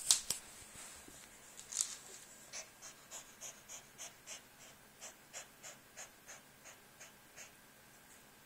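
Bengal cat panting like a dog, rapid shallow breaths about three a second that fade out after a few seconds, the sign of a cat winded by vigorous play. A sharp scuffing noise comes right at the start.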